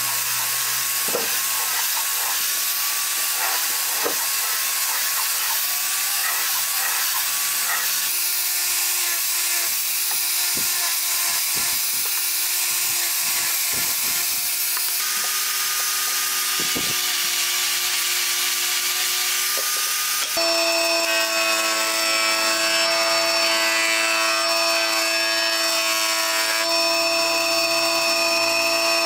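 Angle grinder fitted with a sanding disc running at a steady high whine, sanding wooden dowels and small blocks with a scraping hiss. About 20 seconds in it gives way to a larger woodworking machine, a planer-jointer, running with a steady pitched hum.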